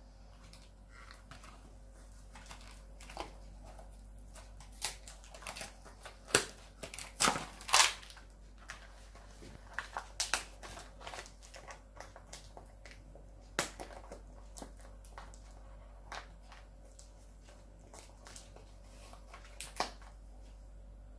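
Irregular clicks, taps and knocks of metal guitar hardware being handled as the bridge is worked loose and taken off an electric guitar. The loudest knocks come in a cluster about six to eight seconds in.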